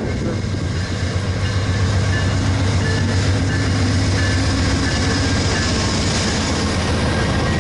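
VIA Rail passenger train rolling out of the station, with a steady low drone and the rush of wheels on rails, growing slightly louder toward the end.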